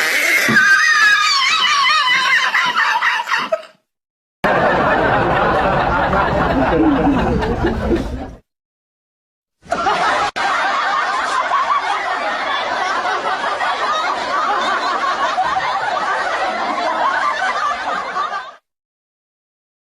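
Laughter sound effects, three separate clips one after another, cut apart by short silent gaps: the first about three and a half seconds long, the second about four seconds, the third about nine seconds.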